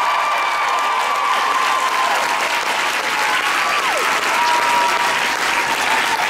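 Theatre audience applauding loudly and steadily, with cheers held above the clapping, one long call sliding down in pitch about four seconds in.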